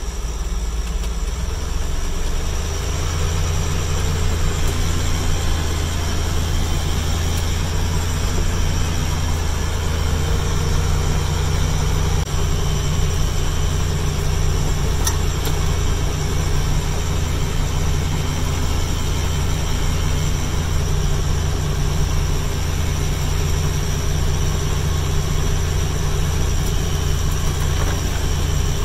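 John Deere 5320N tractor's diesel engine running steadily, picking up about two seconds in, while it powers the hydraulic sickle-bar hedger cutting through apple branches. A steady high whine sits over the engine, with a single brief click about halfway through.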